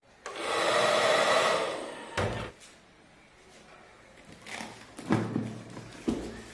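An automatic bazooka bubble gun's fan motor running with a steady whir for about two seconds, then a thud as a cardboard box is set down on a table. A few knocks and rubs follow as the box is turned over by hand.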